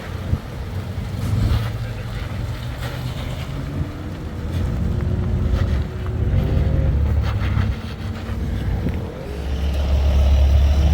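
Off-road vehicle engine working over a trail, its rumble rising and falling several times with throttle and growing louder near the end, with scattered short knocks and rattles.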